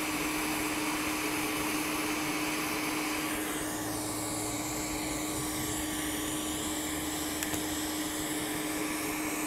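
A small electric motor running steadily, a whirring rush of air with a constant hum.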